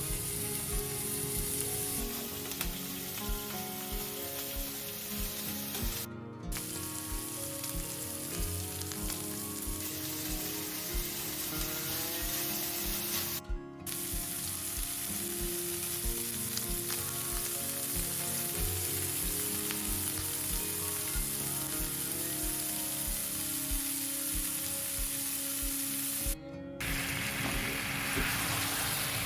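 Food sizzling in a frying pan, a steady crackling hiss, over soft background music with a regular low beat. The sizzle drops out abruptly three times for a moment.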